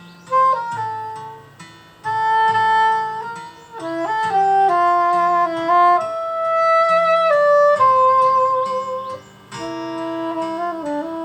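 Saxophone playing a slow melody of long held notes with slight pitch bends, over a gentle plucked-string accompaniment and bass line.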